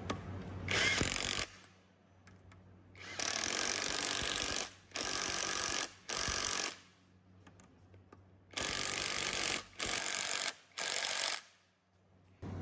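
Cordless impact driver hammering on the hex-socket bolts of a gear reducer's flange cover, one bolt after another, in seven short bursts with pauses between them.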